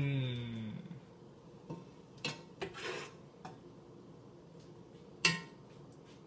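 A metal spoon stirring thick, hop-laden beer wort in a large stockpot, knocking against the pot several times with sharp clinks, one loud clink near the end. At the very start, a brief hum of a man's voice falls in pitch.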